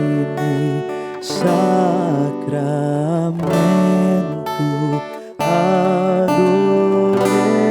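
Slow worship music led by a strummed acoustic guitar, with a sustained melody line over it; the music breaks off briefly about two-thirds of the way through.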